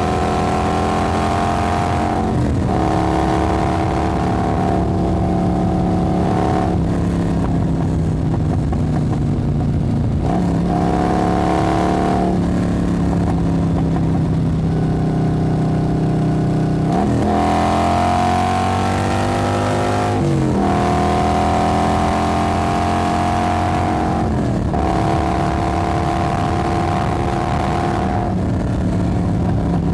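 Motorcycle engine running, its pitch changing every few seconds, with one rising rev about halfway through.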